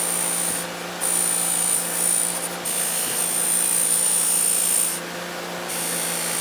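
Bench grinder running steadily while steel is ground against the spinning wheel, with a high grinding hiss that breaks off briefly three times as the piece is lifted away.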